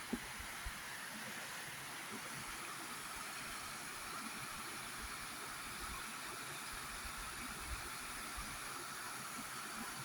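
Running water, a steady rushing hiss with no breaks.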